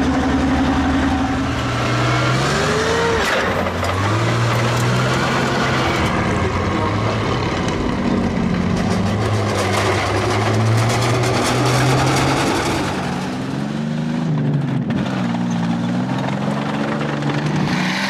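Heavy tracked tank on the move: its engine running and revving, its pitch rising and falling several times, over clanking steel tracks.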